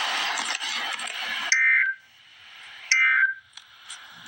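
A loud rush of static-like hiss for about a second and a half. Then come the Emergency Alert System's end-of-message data bursts: short, harsh two-tone digital screeches, each about a third of a second long. The second follows about a second and a half after the first, and a third starts right at the end. The bursts are the SAME "NNNN" end-of-message code, which signals that the alert broadcast is over.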